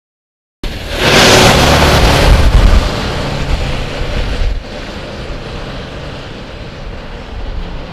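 Garbage truck driving off: engine and tyre noise that starts suddenly after silence, is loudest a second or two in, then fades as the truck moves away, with a step down about four and a half seconds in.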